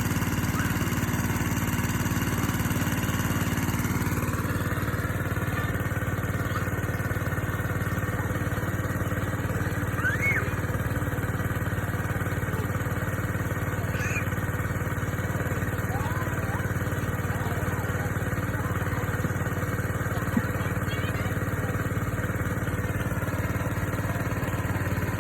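A small engine running steadily, its note shifting slightly about four seconds in.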